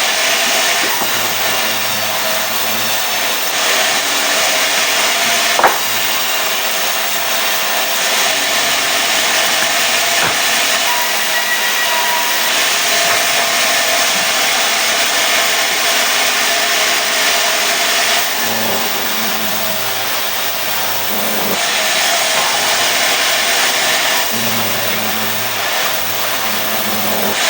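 Sawmill saw cutting mahogany into boards: a steady, loud noise with a lower drone that comes and goes, and one sharp knock about six seconds in.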